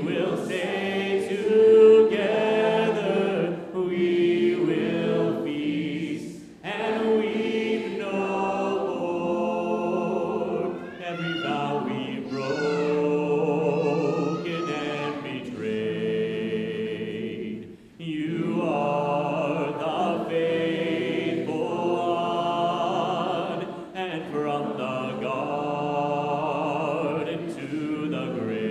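Church congregation singing a hymn a cappella in four-part harmony, in long sung phrases with short breaks for breath between them.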